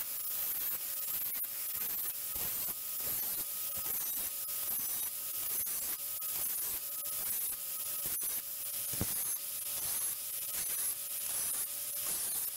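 Angle grinder with an abrasive disc grinding the bare metal body of a vise. The steady whine breaks about twice a second as the disc is worked across the surface.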